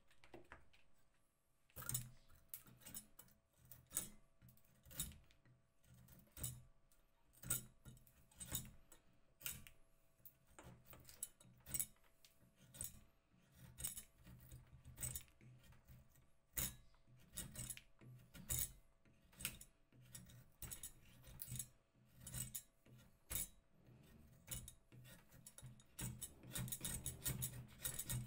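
Saw blade of a 1970s Soviet axe-saw-chisel combination tool cutting through a thin wooden stick, in regular push-pull strokes about one a second. The strokes start about two seconds in and come faster near the end.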